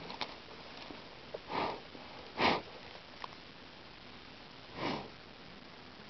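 Three short sniffs close to the microphone, the middle one loudest, with a few faint clicks between them.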